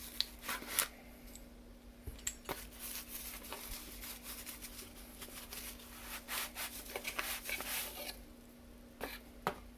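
Cardboard and plastic packaging being opened and handled: irregular rustling, scraping and tearing with scattered clicks, over a faint steady hum.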